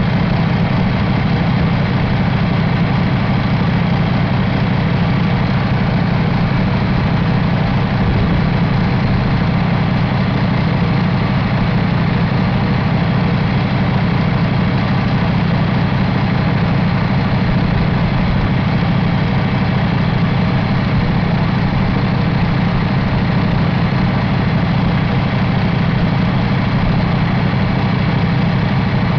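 2018 International A26 12.4-litre inline-six diesel engine idling steadily, heard up close in the engine bay.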